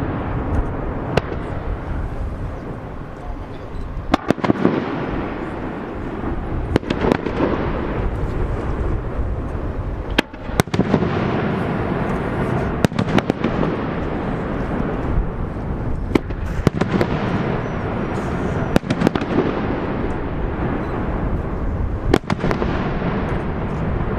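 Fireworks display: sharp bangs of bursting shells every second or few over a steady rumble.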